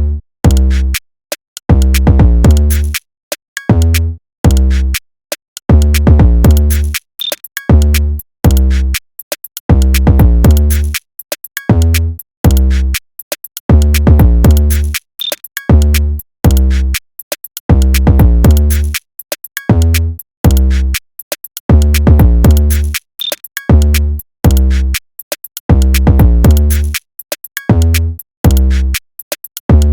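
Hip hop music: a drum-machine beat with deep bass hits in a steady rhythm, broken by brief stops.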